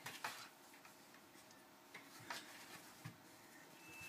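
Near silence with a few faint taps and clicks from a cat and a Labrador pawing and nosing at each other around a wooden chair: two close together at the start, then two more singly later on.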